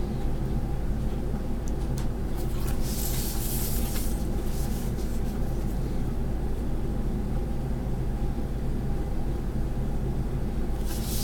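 A steady low hum throughout, with a brief rustle of paper sliding over the table about three seconds in.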